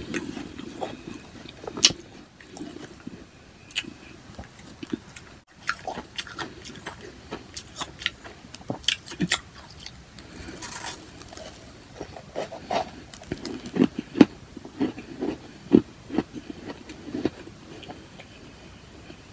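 Powdery ice chunks being bitten and chewed, with irregular sharp crunches that come thicker in the middle of the stretch.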